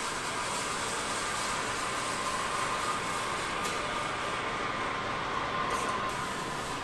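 Running factory machinery: a steady, even hiss with a faint steady whine in it.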